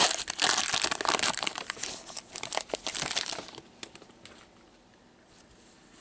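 Trading card pack wrapper crinkling and crackling as it is handled. The crinkling is dense for about three and a half seconds, then thins to a few scattered crackles.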